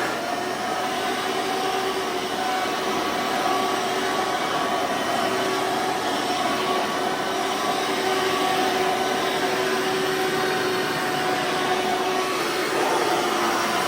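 2003 Hoover Soft & Light Supreme upright vacuum cleaner with a 12 amp motor running steadily: a loud rush of air with a steady motor whine.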